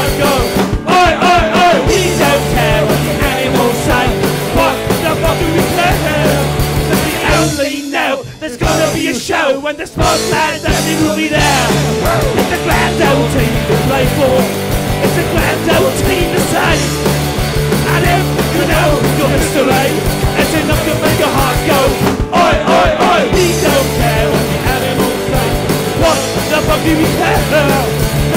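Loud rock music soundtrack with a steady beat; the bass and drums drop out briefly about eight seconds in, then the band comes back in.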